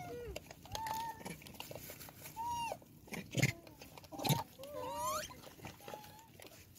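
Rhesus macaques calling: a string of short, arched coos, one sweeping upward about five seconds in. A few sharp knocks are the loudest sounds, around the middle.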